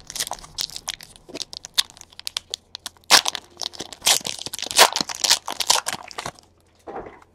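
Foil trading-card pack wrapper crinkling and tearing in the hands as a pack of 2016 Elite Extra Edition Baseball cards is opened, a rapid irregular crackle that stops about six seconds in.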